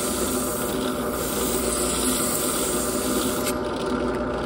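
Drill press spinning a cylinder-head valve while sandpaper is held against the valve head: a steady motor hum under a rasping sanding noise. The sanding stops about three and a half seconds in, leaving the motor hum.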